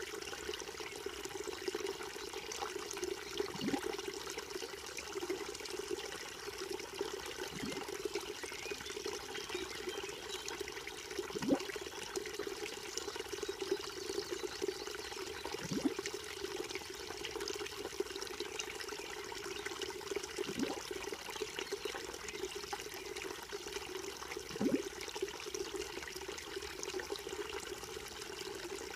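Small creek trickling and gurgling over stones, with a louder gurgling plop about every four seconds.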